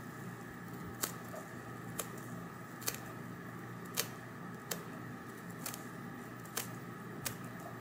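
Stainless steel Revlon slant-tip tweezers plucking hairs from a lace frontal wig's hairline: a short sharp click about once a second, eight in all, as each pull drags hair out, over a faint steady hum.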